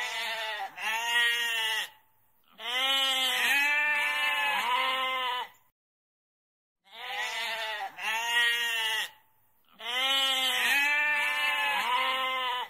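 Goat bleating. Two short quavering bleats are followed by one long drawn-out bleat that wavers through several rises and falls, and after a pause of about a second the same pattern of calls repeats.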